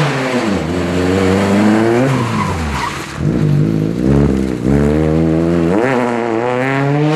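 Rally car engine revving hard, its pitch climbing and then dropping several times through gear changes as the car takes a tight bend.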